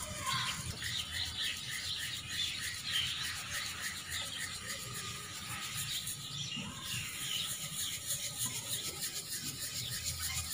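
Ground flaxseed being sifted through a fine flour sieve, the sieve worked back and forth with a quick rubbing rhythm of about four strokes a second, to strain out the coarse bits left after milling.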